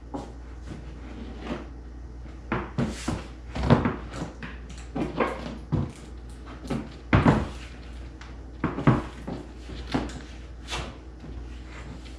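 A plastic front lip spoiler being fitted onto a Toyota AE86 front bumper: irregular knocks, clicks and scrapes as the parts are handled and pressed together, over a steady low hum.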